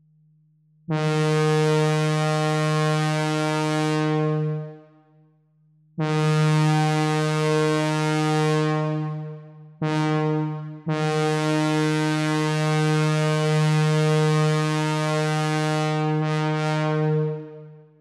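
Train horn chord played on the AudioKit Synth One synthesizer app, with buzzy sawtooth oscillators. It sounds in four blasts, long, long, short, long, which is the railroad grade-crossing horn signal.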